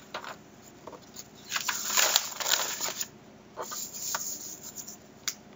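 Rustling and scraping handling noise close to the microphone, in two spells of a second or so, with one sharp click near the end.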